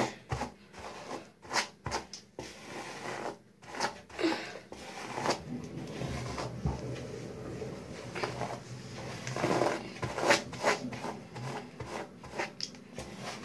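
Hairbrush being dragged through long hair: a run of irregular brushing strokes, each a short swish.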